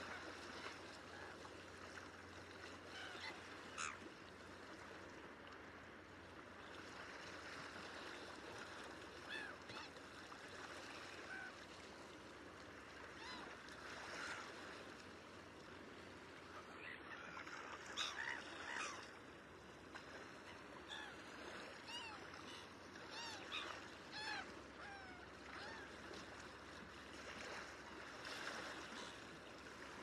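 Black-headed gulls calling: scattered short calls, some in quick runs, the loudest about halfway through, over a steady wash of water noise.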